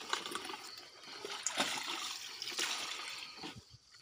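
Water splashing and trickling in irregular rushes, with some handling rustle, dying away after about three and a half seconds.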